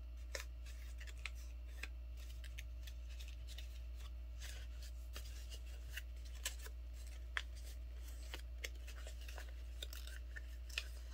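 Folded paper crinkling and rustling in short, scattered crackles as hands crease and shape the folds of a paper airplane, over a steady low hum.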